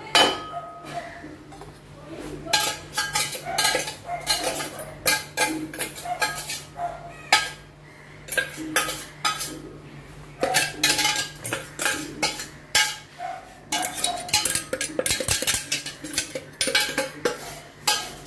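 A metal spoon scraping and tapping inside a stainless-steel mixer-grinder jar, knocking ground biscuit powder out into a bowl. It comes as irregular clusters of sharp clinks and scrapes, with short lulls between them.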